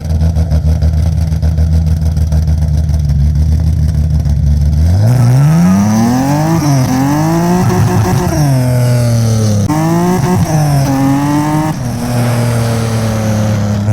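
Nissan 350Z's swapped-in G37S 3.7-litre V6 with forged pistons and rods, running at a steady low speed, then from about five seconds in revved up and down repeatedly, rising and falling in pitch several times.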